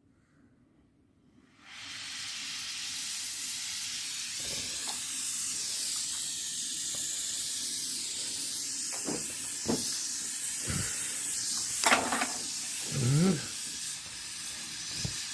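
Small oxy-propane brazing torch hissing steadily, starting suddenly about two seconds in. A few short knocks and clicks sound over it, the sharpest about twelve seconds in.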